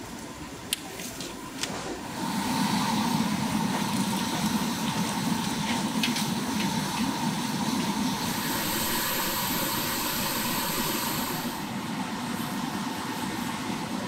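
A few light knocks as ginger roots are handled in a metal colander. About two seconds in, a louder, steady sound takes over: a large wok of broth at a rolling boil over a running gas burner, bubbling and hissing.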